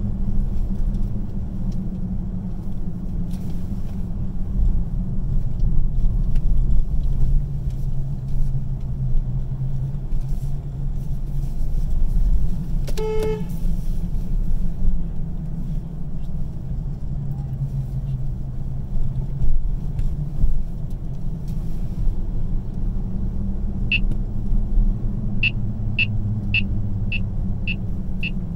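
Car driving on city streets, heard from inside the cabin: a steady low rumble of road and engine noise. About halfway through comes one short car-horn toot, lasting about half a second, and near the end a run of short, high ticks, roughly one or two a second.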